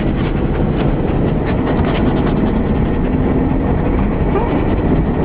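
Steady road and engine noise heard inside the cabin of a moving car, a constant low rumble.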